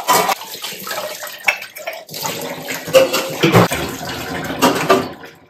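Tap water running into a kitchen sink while utensils are washed, with clattering knocks of dishes against the sink throughout. It cuts off abruptly near the end.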